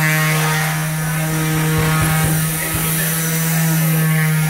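A woodshop power tool's electric motor running with a steady hum, one even tone with many overtones. A few dull low thumps come about two seconds in.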